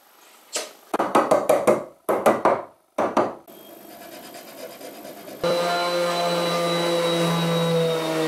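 Quick rasping strokes of a hand tool on pine wood, in several short bursts. About five seconds in, a steady motor hum starts and holds, then cuts off abruptly.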